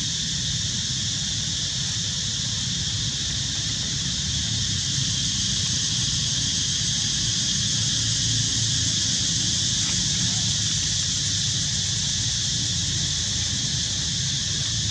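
Steady outdoor ambience: a continuous high-pitched insect drone over a low rumble, unchanging throughout, with no distinct animal calls.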